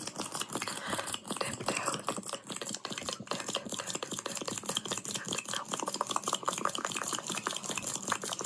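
Stomach growling picked up close to the belly: a dense, continuous run of gurgles, clicks and short squeaky tones.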